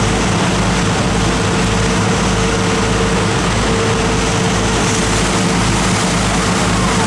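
Sportfishing boat's engine running steadily under way, a low drone with a steady hum above it, over the rush of the wake and wind.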